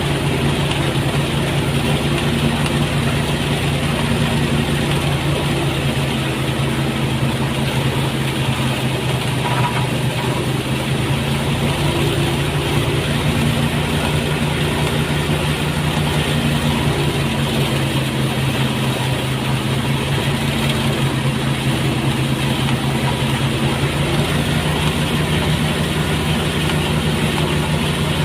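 Motorised rice threshing machine running steadily, its engine humming at an even speed.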